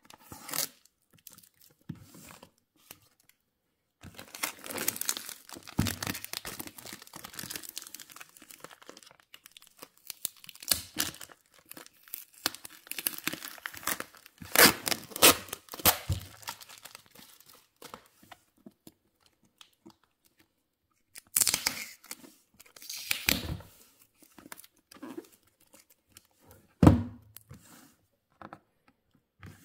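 A ceramic knife slitting tape and plastic film on a cardboard box. Plastic crinkles and tears in irregular bursts, with a few dull knocks of the box against the table, the loudest near the end.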